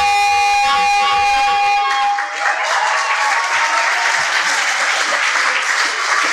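Music holding a sustained chord that stops about two seconds in, followed by audience applause.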